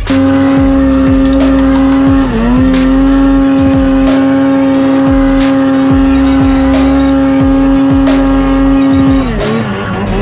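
Snowmobile engine held at high revs while climbing a steep snow slope. It dips briefly about two seconds in, then falls off near the end. Music with a steady beat plays underneath.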